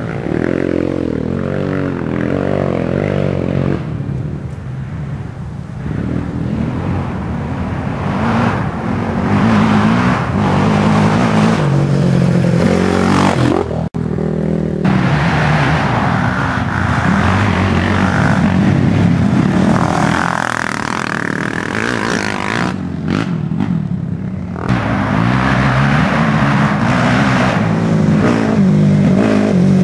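Racing quad (ATV) engines revving up and easing off again and again as they run the trail, with a brief dropout about fourteen seconds in.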